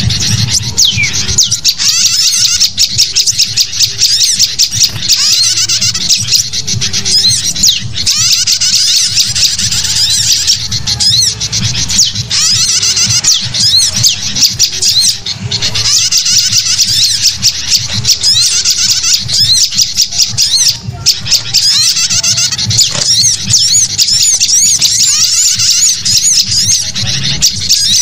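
Bird-lure recording of many small songbirds calling at once: noisy sooty-headed bulbul calls mixed with sunbird and tailorbird chirps, in a dense, continuous chatter of quick high chirps and short rising and falling notes.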